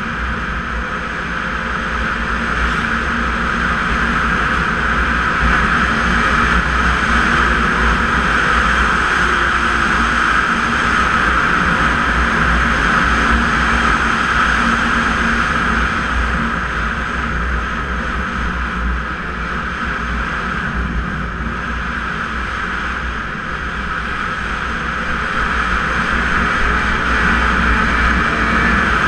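Snowmobile running steadily while under way on a trail, a continuous engine drone that swells a little in level now and then.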